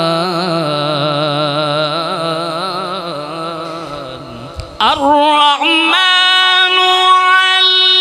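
A male reciter chanting the Qur'an in melodic tilawat style. First comes a long ornamented held note with wavering pitch that fades away about four seconds in. After a brief pause he comes back much louder and far higher, with a sliding phrase that settles into a long steady high note.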